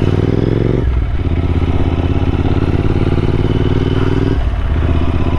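Royal Enfield Interceptor 650's parallel-twin engine running under way, rising a little in pitch at first, then dipping briefly about a second in and again near the end.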